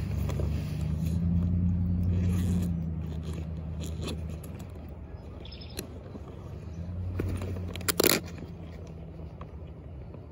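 Wind rumbling on the microphone, louder in the first few seconds, with scattered rustles and scrapes close by and a sharp crunch about eight seconds in.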